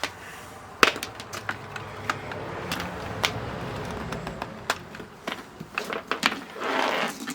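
Clicks, knocks and rubbing from handling a handheld digital multimeter's plastic case as it is opened up, with one loud click about a second in and a short scraping rush near the end.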